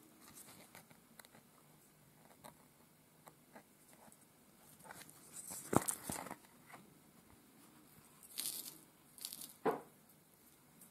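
Faint handling sounds of bead embroidery: small scattered clicks of a needle picking seed beads from a metal tin, and rustles of the felt being handled. The loudest is a sharp click a little past halfway, followed by two short rustles near the end.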